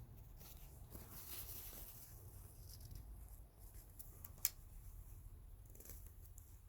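Faint sniffing breaths from a man with a lingering cold, resting between induced sneezes, and one sharp click about four and a half seconds in.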